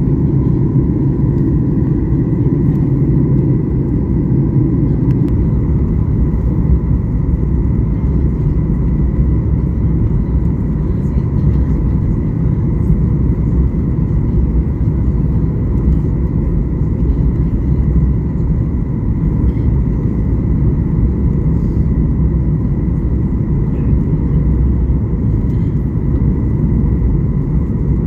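Steady cabin noise of an airliner in flight: a constant low rumble of engines and rushing air, with faint steady whining tones over it.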